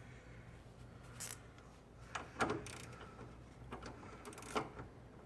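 Scattered plastic knocks and scrapes as the stock airbox is squeezed and worked loose from its mounting, the loudest knock a little over two seconds in.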